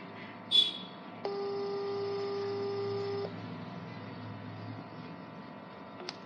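WhatsApp outgoing-call ringback tone from a smartphone: one steady ring about two seconds long, starting just over a second in, meaning the call is ringing and not yet answered. A brief sharp noise, the loudest sound, comes about half a second in.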